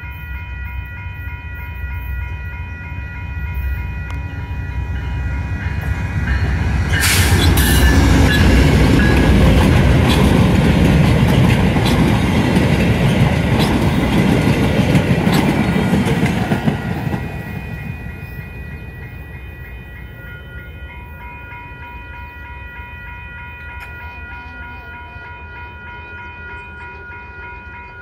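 VIA Rail P42DC diesel locomotive and its LRC passenger coaches passing a level crossing. The rumble builds, is loudest for about ten seconds in the middle with wheels clicking over the rail joints, then fades as the last coach goes by. The crossing's warning bells ring steadily, heard clearly before and after the train.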